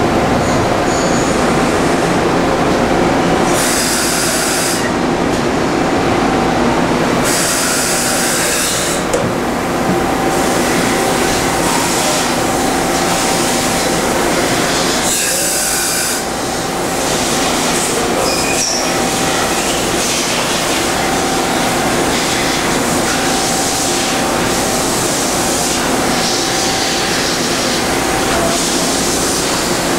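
Okuma MC-50H horizontal machining center running a pallet change: a steady mechanical hum with a faint held whine, broken by several short bursts of hiss, the first about three and a half seconds in.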